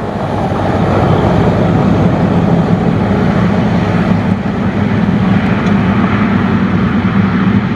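Diesel engines of two heavy trucks running steadily as they pull along the highway side by side, one overtaking the other. The sound rises over the first second, then holds as a steady low engine hum.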